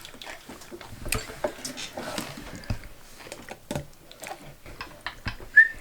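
Scattered light clicks and taps of dishes and utensils at a meal, with a short high chirp near the end.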